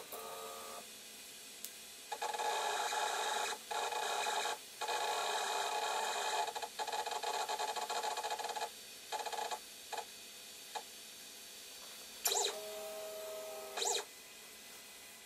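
Ultimaker 2 3D printer's stepper motors driving its axes during first-run setup: a rasping buzz for about six seconds with two short breaks, a few brief buzzes, then a steadier whine for about a second and a half near the end as the print head moves.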